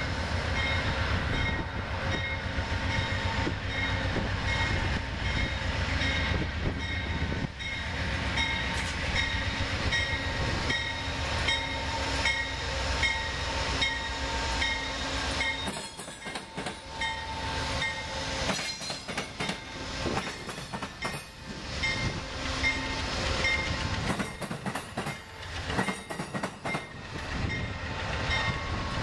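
Amtrak GE P42DC Genesis diesel locomotive passing close by, its engine running with a deep rumble and a steady whine. About halfway through, the locomotive has gone by and the passenger coaches follow, their wheels clicking and knocking over the rail joints.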